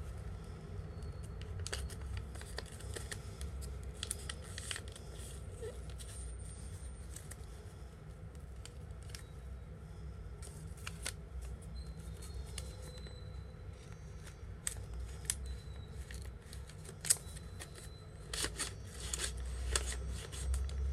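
Folded origami paper rustling and crinkling in the hands, in a scatter of crisp strokes, as the paper bird is creased or worked.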